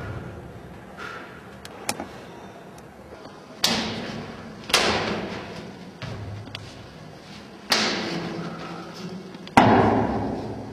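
Sharp impacts from a Seven Star Praying Mantis kung fu form: the performer's strikes and stamps, with a few light taps and then four loud cracks. Each crack dies away over about a second in an echo, and the last one is the loudest.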